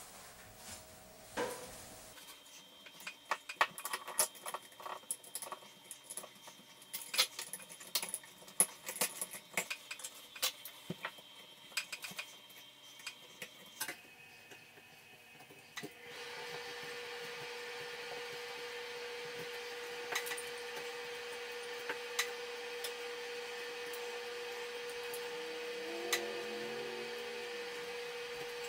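Light clicks and clinks of hands working at a light fixture and its metal electrical box, many short sharp ticks over about twelve seconds. From a little past halfway a steady hum runs underneath, with a few scattered clicks.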